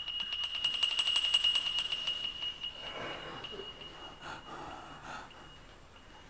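A high, steady bell-like ringing tone with a fast rattling trill over it for the first two or three seconds, then slowly fading away.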